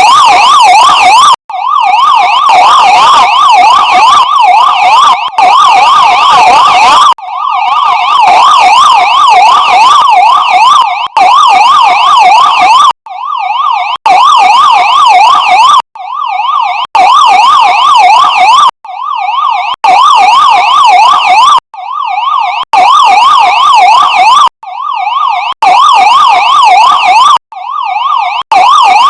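Police siren in a fast yelp, its pitch sweeping rapidly up and down. It cuts out briefly every few seconds and swells back in each time.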